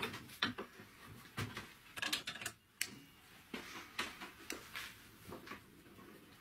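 Scattered metallic clicks and clinks of a spark plug being clamped in a steel bench vise and a ring spanner being fitted to its hex and worked.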